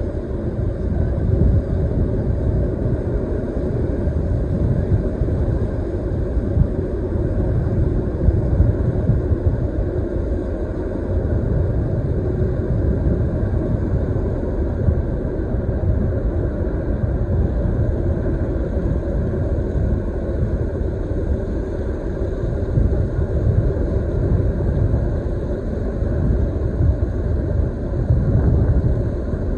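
Steady low rumble of the Evergreen container ship Ever Fair moving past close by, its engines and hull sounding across the water.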